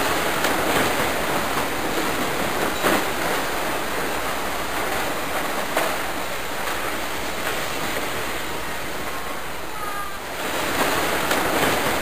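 Steady rushing hiss throughout, with a few faint clicks and knocks from handling the ignition lock cylinder housing on the steering column.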